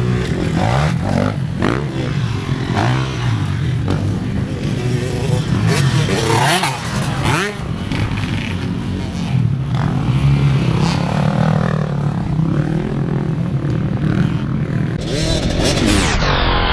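Motocross dirt bikes revving on a dirt track, engine pitch rising and falling again and again as riders throttle up and ease off. Near the end a bike passes close by.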